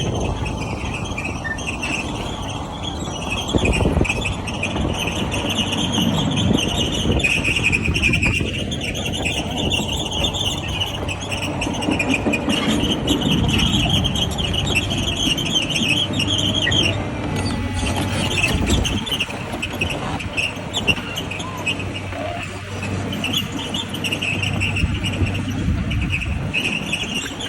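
Hidromek construction machine driving with its engine running and a loud, high-pitched whistle that wavers throughout, dropping out briefly about two-thirds of the way through.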